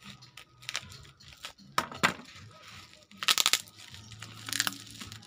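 Carbon-fibre vinyl sticker film crinkling and rustling as it is handled, pulled and pressed around a tube, in several short bursts.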